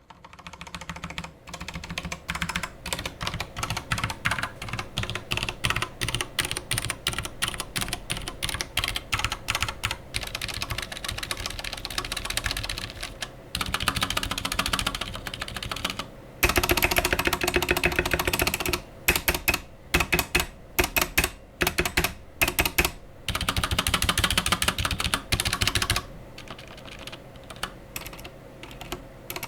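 Akko 3087 mechanical keyboard with Akko's own switches and PBT keycaps being typed on quickly: fast runs of key clicks broken by brief pauses, growing lighter and sparser near the end.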